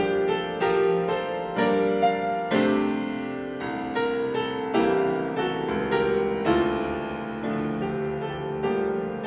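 Solo piano music: an unhurried melody of struck notes over sustained chords.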